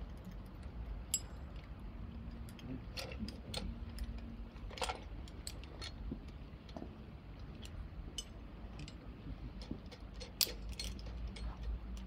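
Scattered small metallic clicks and clinks of rope-rescue hardware being handled on a rescue tripod, irregular and a few a second, over a low steady rumble.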